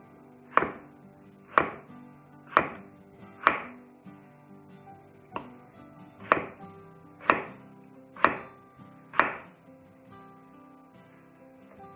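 Chef's knife slicing through raw peeled potatoes and striking a wooden cutting board: nine sharp chops about a second apart, a run of four, a short pause about four seconds in, then a run of five. Faint background music underneath.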